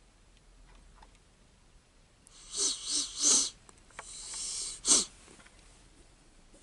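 Breathy sounds from a person close to the microphone: three quick bursts, then a hissing breath lasting about a second that ends in one sharp burst.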